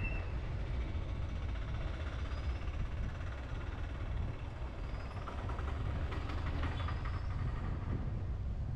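Steady low rumble of engine and road noise from a vehicle driving slowly along a road, with a few faint, short high chirps now and then.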